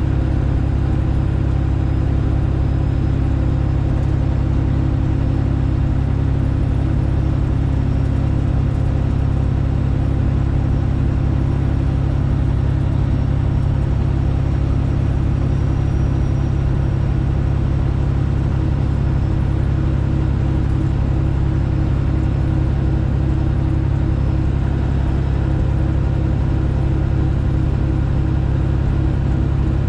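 Straight-piped Detroit Diesel engine of a Freightliner Classic XL semi truck running loud at steady revs: an even, unbroken low drone with no shifts or revving.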